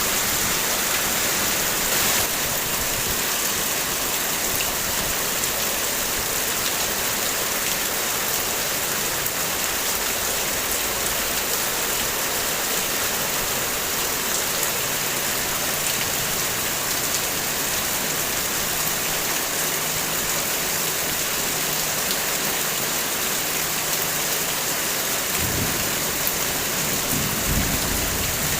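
Heavy rain falling steadily on a car's body, heard from inside the car as a dense, even patter. There is a brief low rumble near the end.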